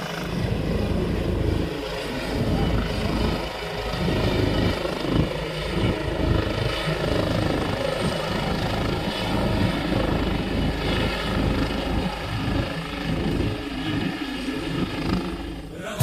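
Helicopter with an enclosed (fenestron) tail rotor hovering low as it comes in to land close by: a steady rotor and engine din with uneven low rumbling gusts.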